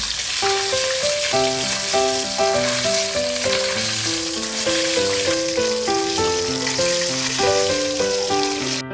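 Steady sizzling of native chicken cooking, over light piano background music; the sizzle cuts off suddenly near the end.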